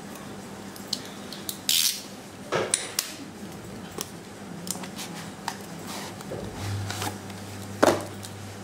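Cardboard phone box handled and slid open by hand: scattered clicks, taps and short scraping rubs, with a louder knock near the end.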